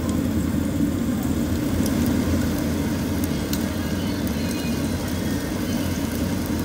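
A steady low mechanical hum with faint, scattered high ticks.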